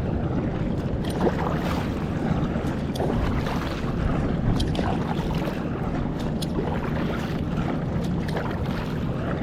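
Steady wind rumbling on the microphone out on the open water of a kayak trip, with a few scattered small knocks.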